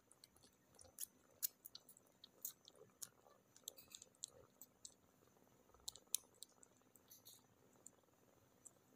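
Kittens suckling on each other: faint, irregular mouth clicks and smacks, a few a second, thinning out near the end.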